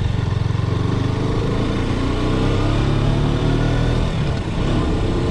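KTM RC 390's single-cylinder engine running while the bike is ridden, its pitch climbing over the first few seconds, with a short dip in level about four seconds in.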